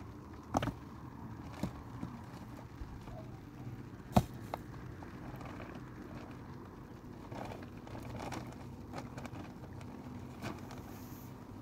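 Clear plastic sheeting being handled: rustling and crinkling with a scatter of short clicks and knocks, the sharpest about four seconds in, over a steady low hum.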